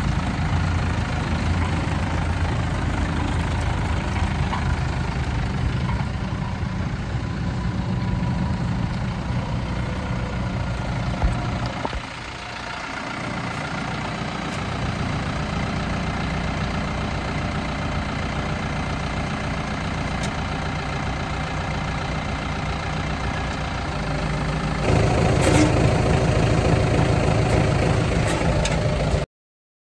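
John Deere 1070 MFWD tractor's diesel engine running steadily, first as the tractor drives across the gravel, then idling, heard close up from behind; it gets louder near the end.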